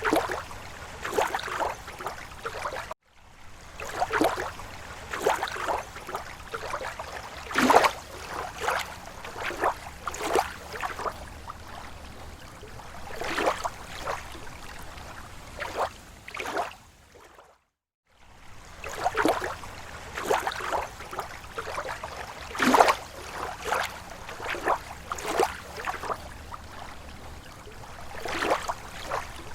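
Small slow waves lapping on a lake shore, with irregular little splashes and slaps of water every second or so. The sound cuts out briefly twice, about three seconds in and again near the middle.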